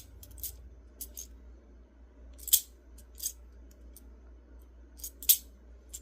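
Plastic magnetic building cubes clicking and clacking against each other as they are handled, a handful of sharp clicks with the loudest about two and a half seconds in and again near the end.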